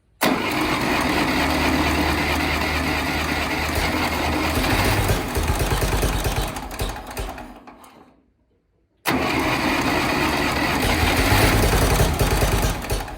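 Continental gas engine of a Massey Ferguson 204 forklift being started twice. Each time it starts abruptly and runs for several seconds, then dies away, with a second of silence between. It is hard to keep running cold, with no choke cable hooked up.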